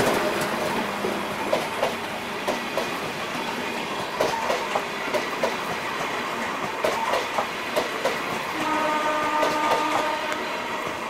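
Broad-gauge CRRC passenger coaches of an express train running past at speed: a steady rush with the wheels clicking over rail joints in quick groups, the clickety-clack of bogies passing one after another. A steady hum joins near the end, and the noise slowly fades as the tail of the train goes by.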